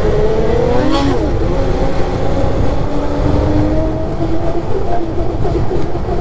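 Polaris two-stroke snowmobile engine running under steady throttle around 6,500 rpm, with track rumble underneath. About a second in the engine pitch rises briefly, then drops back and holds steady.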